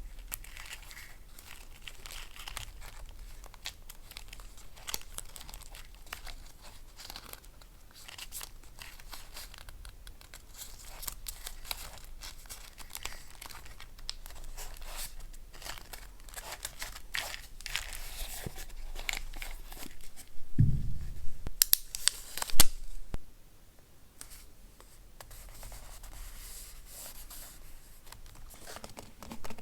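Paper handled close-up: crinkling, rustling and tearing, with small clicks and scrapes throughout. About three-quarters of the way through there is a louder burst of handling, starting with a low thud and ending in a sharp snap.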